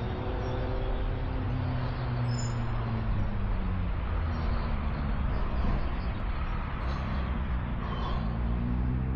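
Road traffic: vehicle engines passing close by. One vehicle's engine note falls in pitch over the first few seconds and another rises near the end, over a steady hiss of tyres.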